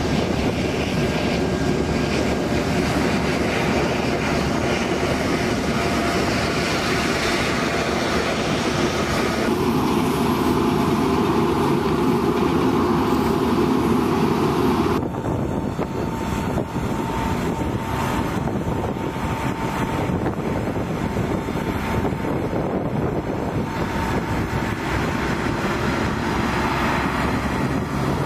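Four turbofan engines of a C-17 Globemaster III cargo jet running on the ground, a steady jet noise. The sound changes abruptly about ten and fifteen seconds in, and a steady whine runs through the later part.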